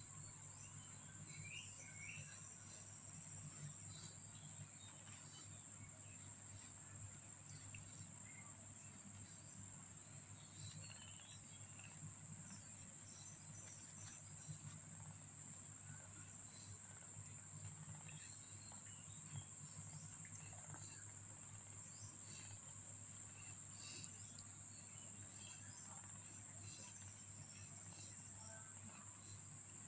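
Quiet room tone under a steady, thin, high-pitched whine and a faint low hum, with soft scattered clicks and rustles from a mother cat licking and grooming her kitten.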